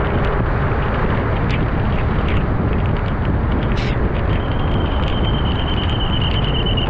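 Steady, loud rushing of a vehicle driving through flooded, rain-soaked streets, with water and tyre noise under the engine and a few faint clicks. A steady high tone joins about four seconds in.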